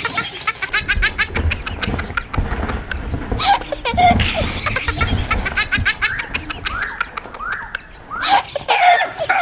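Repeated laughter, quick short ha-ha-ha bursts over and over; a dog starts barking near the end.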